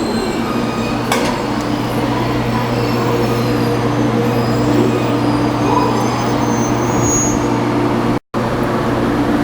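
Inside a 783 series limited-express electric train's motor car, the steady running noise of the train, a low drone with a few faint held tones over a rumble. The sound drops out completely for a split second about eight seconds in.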